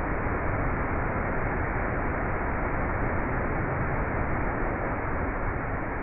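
Steady rushing noise of a tall waterfall pouring into its plunge pool.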